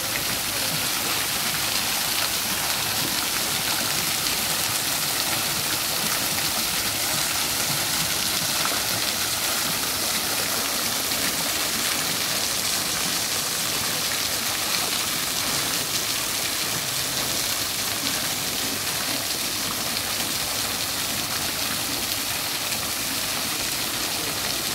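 Public fountain's vertical water jets splashing steadily down into stone basins: an unbroken hiss of falling spray and water.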